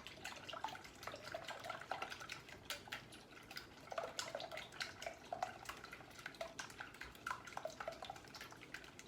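Cracked raw eggs being beaten in a mixing bowl: the utensil clicks irregularly against the bowl, with small wet sloshing sounds.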